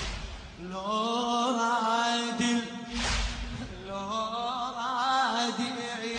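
A male reciter chanting a Shia noha lament into a microphone, his voice wavering in long ornamented lines over a steady low drone. Three heavy thumps, about three seconds apart, cut through the chant.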